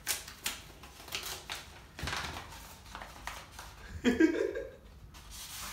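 Crinkling, rustling and small clicks of a delivered package being opened by hand, with a short murmur or laugh from the person opening it about four seconds in.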